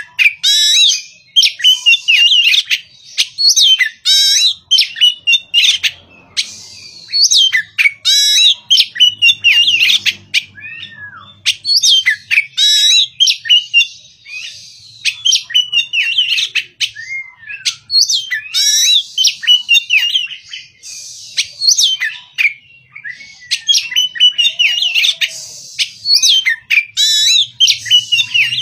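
Oriental magpie-robin singing: a loud, varied run of quick whistled and sharp notes in short rapid phrases, broken by brief pauses.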